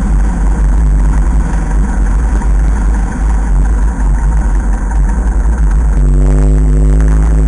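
A 1946 Ercoupe's Continental C85 four-cylinder air-cooled engine running as the plane rolls on its landing gear along paved taxiway. About six seconds in, music comes in over the engine.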